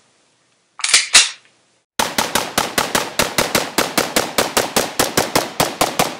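A short whooshing sound about a second in, then an AR-style rifle fired in a rapid, even string of shots, several a second.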